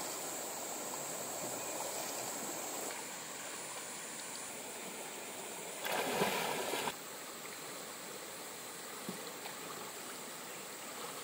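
Shallow river running over stones, a steady rush of water, with a louder splash lasting about a second around six seconds in as a swimmer moves in the water.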